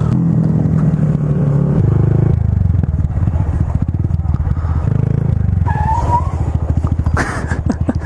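Honda Grom's 125cc single-cylinder engine running steadily. From partway through, its individual firing pulses come through as a rapid, even beat.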